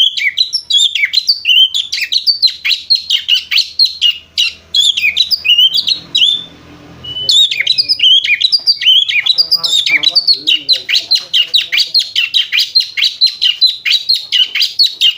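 Oriental magpie-robin (kacer) singing a fast, chattering run of short, high chirps in the lovebird-like 'ngriwik' style. It breaks off for about a second near the middle, then carries on.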